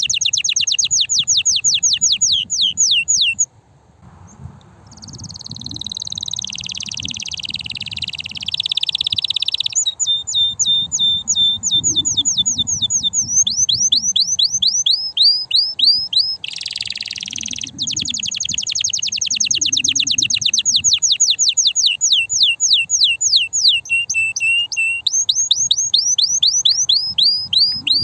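Male domestic canary singing: long rapid trills of repeated downward-sliding notes, a brief pause about three seconds in, a rougher buzzy stretch, then fast trills again.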